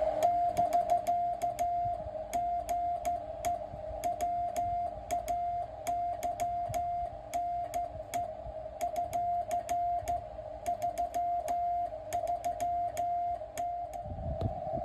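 Morse code (CW) from a low-power (QRP) amateur radio station heard through a ham receiver: a single tone keyed on and off in dots and dashes over steady band hiss.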